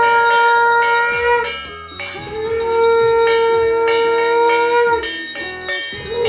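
Conch shell (shankha) blown in long held notes, one blast ending about a second and a half in, a longer one of about three seconds after a short break, and a third starting near the end, with bells ringing underneath.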